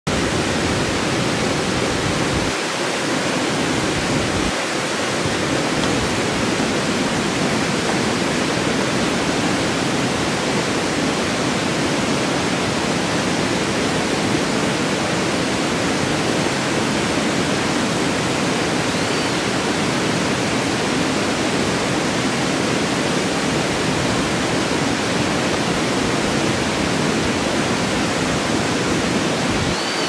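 Water of a small river cascade pouring over rocks and churning through rapids, a steady, unbroken rush.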